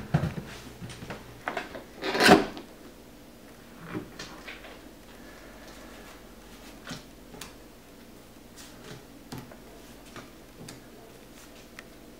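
A leather doctor's bag handled on a wooden table: one loud clack about two seconds in, then scattered light taps and rustles as bundles of cash are taken out and laid down.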